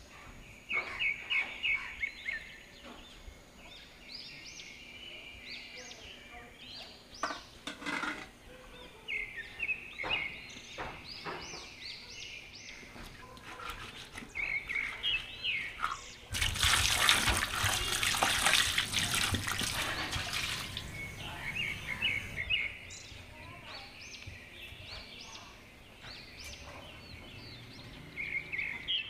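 Birds chirping over and over, with a few soft knocks. About halfway through, water is poured and splashes for about four seconds as small whole fish are rinsed by hand.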